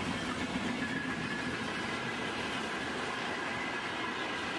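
A freight train's covered boxcars rolling past on the rails: a steady noise of wheels running on track.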